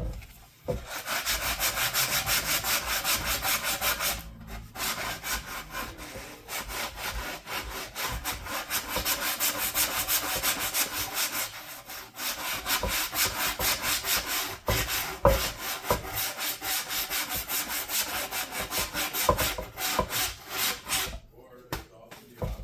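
Sandpaper rubbed fast back and forth by hand against the edge of a router template, in an even stroking rhythm, with two brief pauses.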